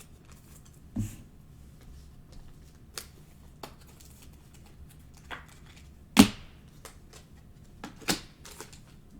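Clear acetate trading cards being handled: scattered clicks and taps as cards are flipped through and set down, with a sharper knock about six seconds in and another about eight seconds in.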